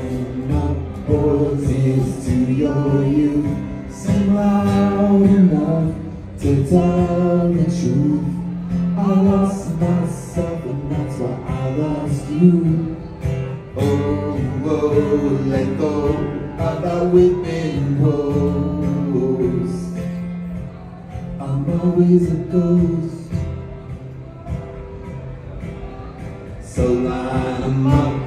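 A man singing live in phrases while accompanying himself on an acoustic guitar.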